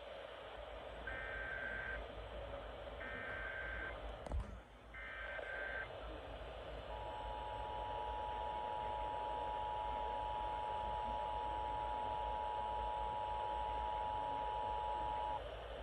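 Emergency Alert System broadcast received over radio: three short bursts of SAME header data tones, each about a second long, then the two-tone EAS attention signal held steady for about eight seconds, over radio hiss. It opens a Required Monthly Test of the alert system.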